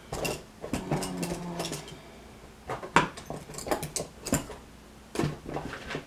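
Small metal tools and parts clicking and clattering as they are handled and set down on a hard table, in irregular sharp taps.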